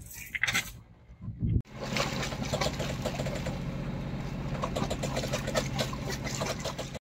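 A sailboat's inboard engine running steadily under way, a constant low hum, with water rushing along the hull. It starts abruptly about a second and a half in, after a few seconds of quieter water sounds.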